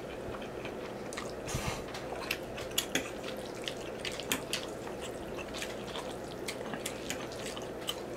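Wet mouth sounds of someone eating spaghetti: scattered small clicks and smacks of chewing, with a short slurp of noodles about a second and a half in.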